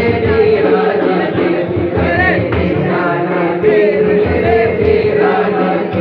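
Group of men singing a qawwali into microphones, with a hand-struck frame drum (daf) keeping a steady beat.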